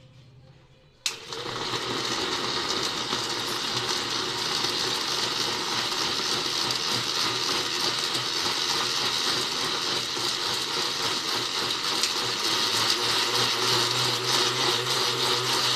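Electric mixer grinder switching on about a second in and running steadily at full speed, blending boiled tomatoes and onions with milk into a purée.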